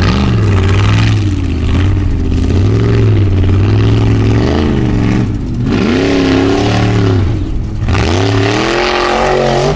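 Formula Offroad racing buggy engine at high revs, working under load up a steep dirt hill. The revs swing up and down continuously as the throttle is worked, drop off briefly about five and a half seconds in and again near eight seconds, then climb back up.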